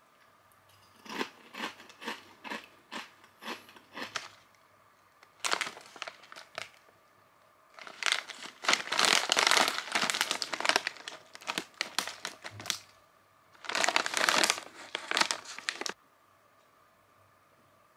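A foil-lined snack bag of Chheda's Small Bhakarwadi crinkling as it is handled. The crinkling comes in several bursts: short crackles in the first few seconds, then longer bursts, the longest and loudest in the middle.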